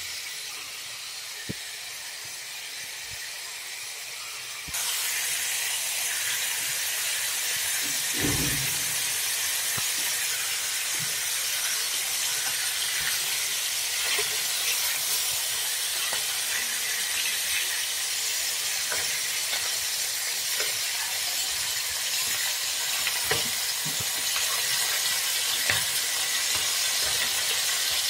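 Shark meat frying in oil in a pan: a steady sizzle that turns louder about five seconds in. Scattered clicks and knocks come from a spatula moving the pieces in the pan.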